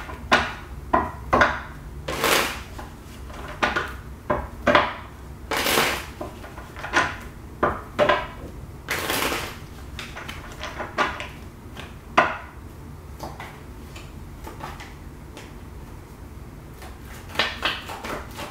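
Deck of tarot cards being shuffled by hand: a run of short, irregular strokes, thick over the first twelve seconds, fewer for a while, then a brief flurry near the end.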